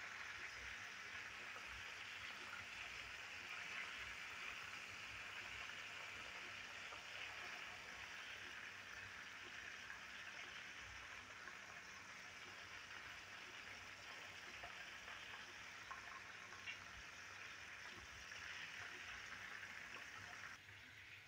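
Chicken pieces deep-frying in hot oil in a pan: a faint, steady sizzle of bubbling oil with a few small pops, dropping off near the end.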